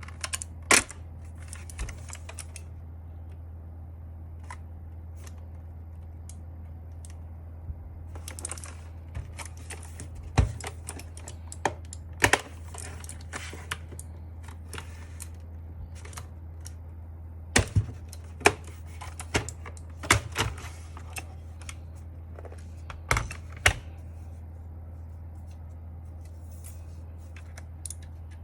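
Scattered sharp plastic clicks and knocks from an Akko mechanical keyboard being taken apart by hand. They come singly and in short clusters with pauses between, over a steady low hum.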